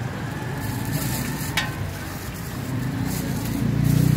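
Burger buns sizzling on a large flat griddle as they are pressed down to toast, with one sharp click about one and a half seconds in. A low engine rumble swells near the end and becomes the loudest sound.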